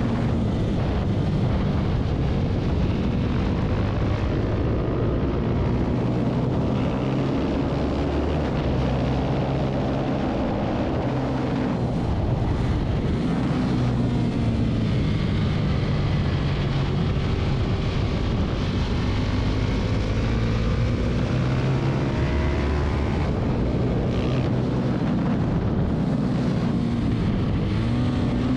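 Husqvarna 701 supermoto's single-cylinder engine running hard on track, its pitch repeatedly climbing and dropping as it shifts up and comes back down through the gears.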